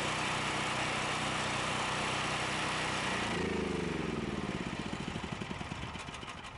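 Portable generator engine running at steady speed, then switched off about three seconds in, its pitch falling as it coasts down and fades.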